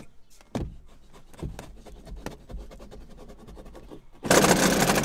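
Car seatbelt webbing being pulled out of its retractor: rubbing and scraping with a few knocks and light ticks. Near the end comes a loud rasping rush about a second long.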